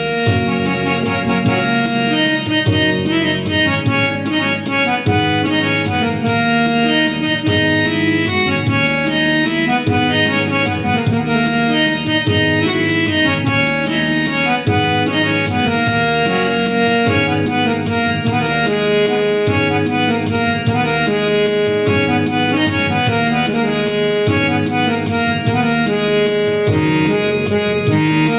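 Yamaha PSR-I455 keyboard playing a melody on its harmonium voice, in held reedy notes, over a steady drum-and-bass accompaniment rhythm.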